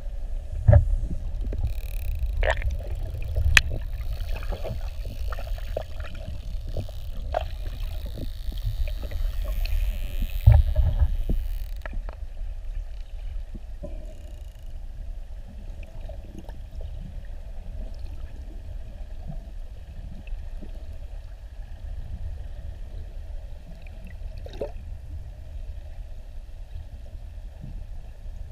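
Muffled underwater ambience: a steady low rumble with scattered sharp clicks and knocks, busiest in the first dozen seconds, with the loudest knocks about a second in and about ten seconds in.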